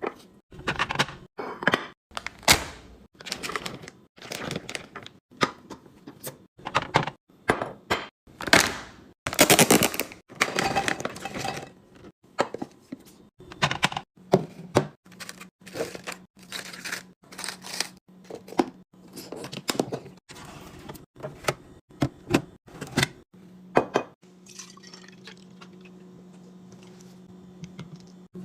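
Kitchen containers and dishes being handled and set down, a quick run of knocks, clinks and clatters. After about 24 s the handling thins out and a steady low hum sits underneath.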